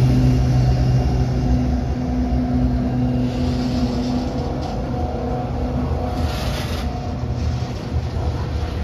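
GE ES44AH locomotives' GEVO V12 diesel engines of a slow-moving loaded coal train, a steady low engine hum that fades about four seconds in. The hum gives way to the rumble of the coal cars rolling over the rails, with brief hisses around the middle and about six seconds in.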